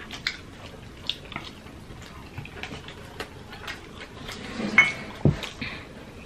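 Close-miked eating sounds: chewing and mouth clicks as two people eat noodles and fish with their fingers. There is a louder smack a little before five seconds in and a soft low thump just after it.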